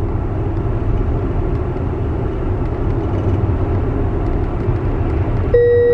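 Tyre and road noise inside a Tesla's cabin while cruising, a steady low rumble with no engine sound. Near the end a steady tone sets in and holds.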